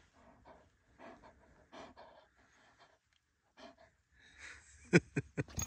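German Shepherd panting softly and unevenly, mouth open. Near the end a few sharp, loud knocks or bumps cut in.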